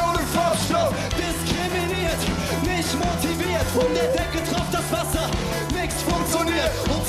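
Rock band playing live: a male lead vocal sung into a handheld microphone over a steady drum kit beat with cymbals, bass and electric guitar.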